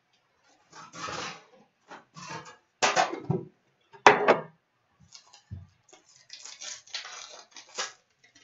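Metal trading-card tin being handled and emptied of its card packs, with clanks and scrapes and a sharp knock about four seconds in. Near the end comes the crinkle of a foil pack wrapper being torn open.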